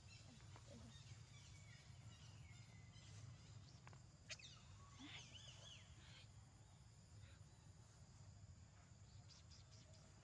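Near silence: a low steady background hum, with a few faint high, wavering chirping calls from an animal about three to five seconds in.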